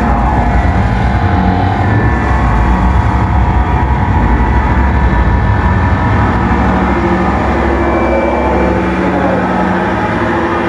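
Harsh-noise electronics played loud through a PA: a dense, distorted wall of noise with a heavy low rumble and steady whining tones on top, easing slightly in level near the end.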